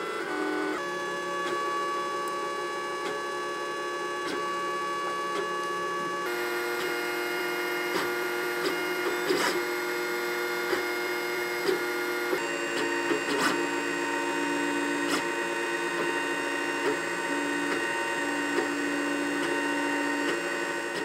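Lulzbot Mini 3D printer's stepper motors whining in several steady pitches as the print head traces a flexible NinjaFlex part, with occasional light clicks. The set of pitches shifts abruptly twice as the head's moves change.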